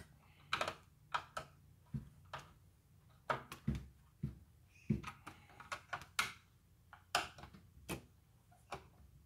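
Scattered short clicks and knocks of a hand screwdriver tightening the screws of a Cat Power 1200 circular saw's plastic motor-end cover during reassembly, the saw body shifting against the screwdriver.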